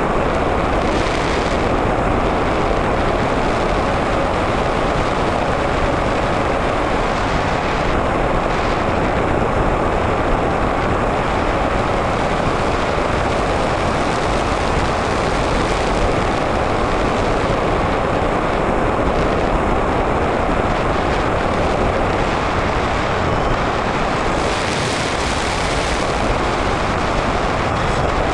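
Onboard sound of an Easy Star 2 RC model plane in flight: a steady rush of airflow over the camera, with the hum of its electric motor and pusher propeller. The hiss briefly rises near the end.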